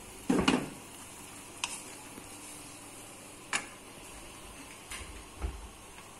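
A wok of thick red spice paste cooking on a gas stove with a faint steady sizzle, broken by a handful of sharp clicks and knocks a second or two apart.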